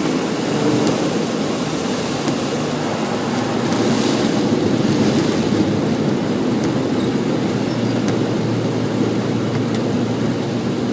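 Floodwater rushing in a steady, loud roar.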